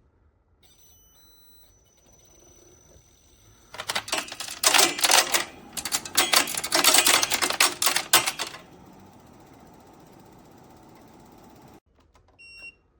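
Midea U-shaped window air conditioner running, with a loud, fast rattling clatter for about five seconds in the middle, then settling to a steady whoosh. The running cuts off abruptly near the end, followed by a short electronic beep from the unit.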